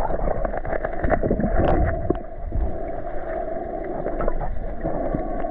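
Underwater sound picked up by an action camera in its waterproof housing: a steady, muffled water rumble with many scattered small clicks and crackles.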